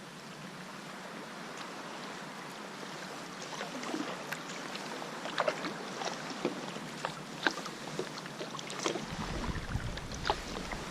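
Water splashing and dripping around a kayak as it is paddled, over a steady wash of sea water; sharp drips and splashes pick up a few seconds in, and a low rumble comes in near the end.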